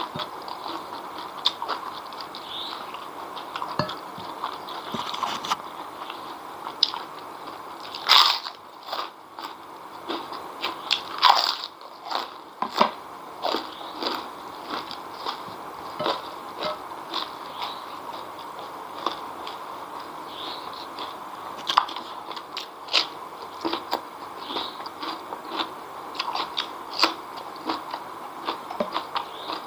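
Close-miked chewing and crunching of food eaten by hand: wet mouth sounds with many short crunchy clicks, and the loudest bites about 8 and 11 seconds in.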